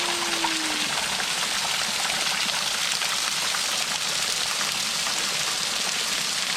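Waterfall close by: a steady, even rush of falling water splashing onto rock and pool, like heavy rain.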